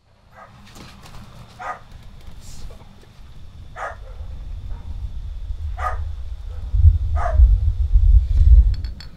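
A dog barking, single barks about two seconds apart, over a deep low rumble that swells steadily and cuts off suddenly near the end.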